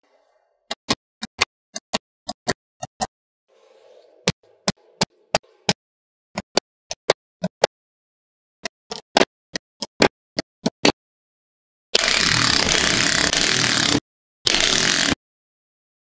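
Small metal magnetic balls clicking sharply as they snap together, in quick runs of a few clicks a second. Near the end a loud rushing noise lasts about two seconds, then comes again for about a second.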